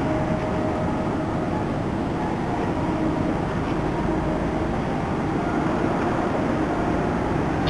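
Steady low marine-engine rumble with a faint droning hum, even throughout.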